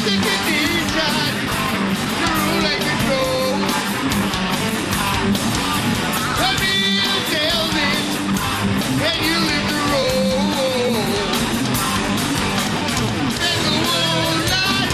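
Live heavy metal band playing loud: distorted electric guitar with bending, wavering lead notes over bass guitar and drums.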